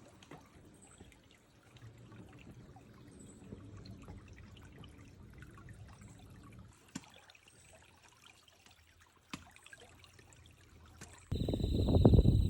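A mountain stream flowing faintly, with a few faint high insect chirps and odd clicks. About eleven seconds in the sound jumps suddenly to loud flowing water, with insects trilling steadily at a high pitch over it.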